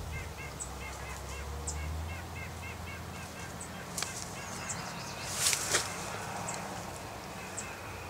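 Birds giving a quick run of short nasal honks, in pairs, several a second, which stop about three and a half seconds in. Faint high chips continue, with a sharp tick and a brief rustle just after the middle.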